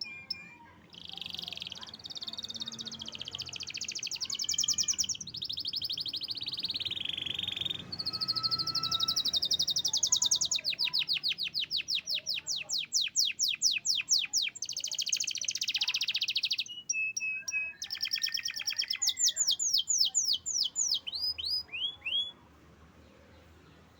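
Local canary singing in full song: a long run of high, rapid trills and rolls of repeated sweeping notes, with a short break partway through, stopping near the end.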